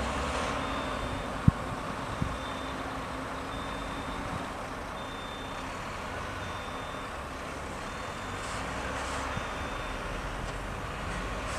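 Mercedes-Benz Actros dump truck reversing: its diesel engine runs low and steady under a reversing alarm beeping about once a second. A single sharp knock comes about a second and a half in.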